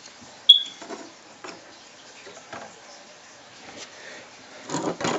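LEGO plastic parts clicking as a built figure is handled and repositioned: one sharp click with a brief high ring about half a second in, then scattered faint ticks and a few louder knocks near the end.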